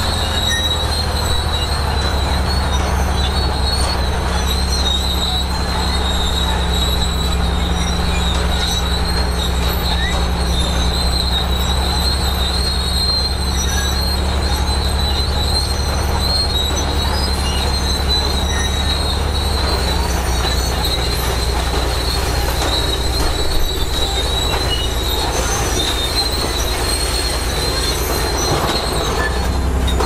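Bulldozer working: its diesel engine runs steadily under a constant high-pitched squeal from its steel crawler tracks. The engine note drops slightly about two-thirds of the way through.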